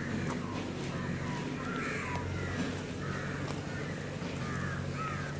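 Crows cawing repeatedly, harsh short calls every second or so, over a steady low hum.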